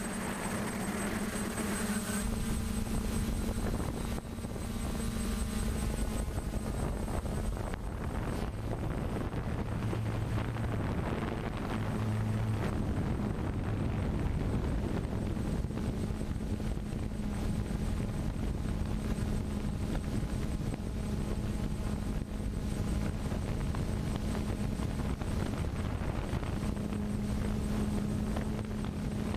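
Quadcopter drone's motors and propellers buzzing steadily, heard through the camera carried on the drone itself.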